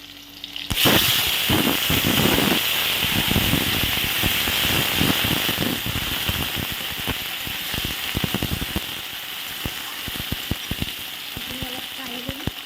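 Cut potatoes dropped into hot oil in a kadai, bursting into loud sizzling about a second in, with dense crackling pops. The hiss and crackle slowly ease as the potatoes fry.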